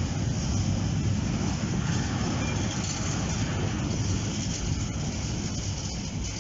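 Freight train of empty stake-sided flat wagons rolling past: a steady rumble of steel wheels on rail, with a few faint clicks, easing slightly toward the end.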